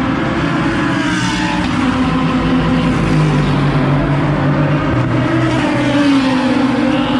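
Endurance race cars of the Asian Le Mans Series going past at racing speed on the main straight. Several engines are heard at once, loud and steady, and their notes rise and fall as cars pass, about a second in and again near the end.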